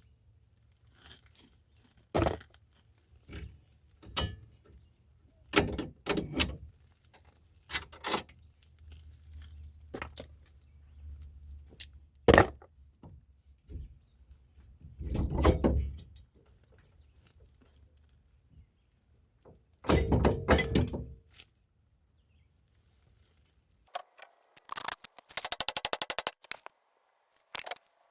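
Hand tools and metal parts clanking, knocking and scraping at intervals, with a few sharp clinks and two longer scrapes or rattles. Near the end comes a quick run of evenly spaced clicks.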